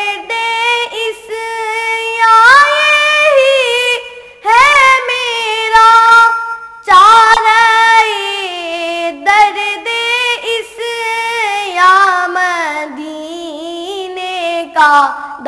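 A young boy's solo voice singing a naat (Urdu devotional poem) in long, drawn-out phrases that glide and ornament each note. He pauses briefly about four seconds in and again near seven seconds.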